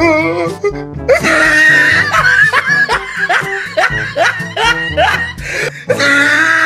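Background music with a steady beat, with laughter over it.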